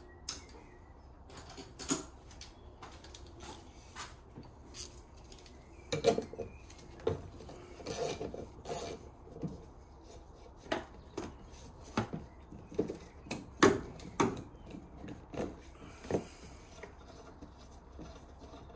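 Ratchet and socket undoing the 15 mm retaining nut on a windscreen wiper arm: a run of sharp clicks at irregular spacing.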